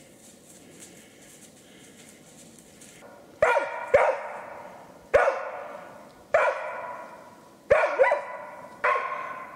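A hunting laika barking at game it has found, the way a laika signals quarry for the hunter. Quiet for the first few seconds, then about six single loud barks at uneven intervals, each trailing off in a long echo.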